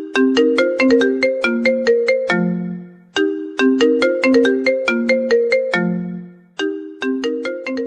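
Phone ringtone melody: a short tune of quick, struck-sounding notes that ring and die away, the same phrase starting over about every three seconds.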